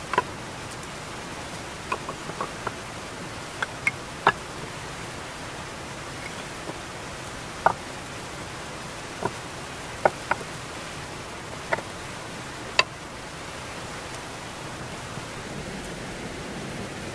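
Wooden logs knocking against one another as short round poles are laid side by side into a floor: about a dozen sharp wooden knocks, irregularly spaced, over a steady hiss.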